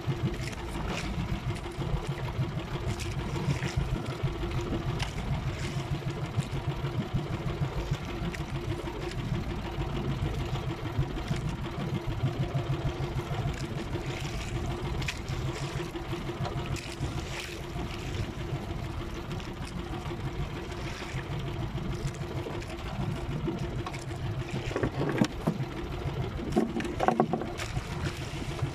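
Small outrigger boat's engine running steadily at low speed, under wind and sea noise. A few knocks come near the end.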